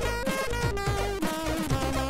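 Chiptune music from a Commodore 64's MOS 6581 SID sound chip: a lead melody stepping downward note by note over a busy bass and synthesized drum pattern.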